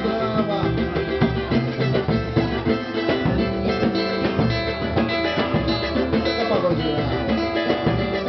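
Live samba group playing an instrumental passage: plucked strings over percussion.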